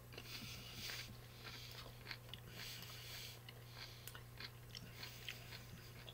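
A person chewing a crunchy pickled gherkin: faint, irregular crunches while the mouth works on it.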